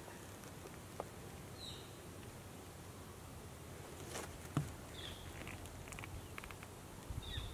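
Faint outdoor ambience with three short, high chirps that drop slightly in pitch, a few seconds apart, and a few light knocks and clicks, the loudest a little past halfway.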